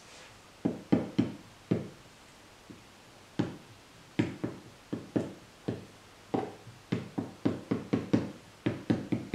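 A metal fork scoring the edge of a clay slab, roughening it for a joint: a run of short scratching strokes, a few at first and then coming faster, two or three a second, through the second half.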